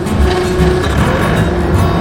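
Background music laid over a skid steer's engine running steadily.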